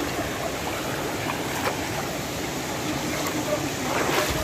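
Shallow stream flowing over rocks, with splashing from people wading through the water.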